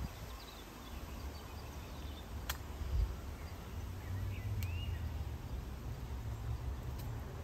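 Outdoor ambience: a steady low rumble with faint bird chirps and three sharp clicks a couple of seconds apart.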